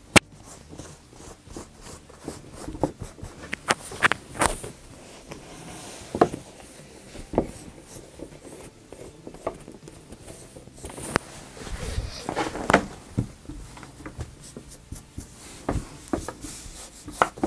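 Tailor's chalk scraping and rubbing across hoodie fabric as pattern lines are marked, with fabric being smoothed and shifted by hand and scattered light taps on the tabletop.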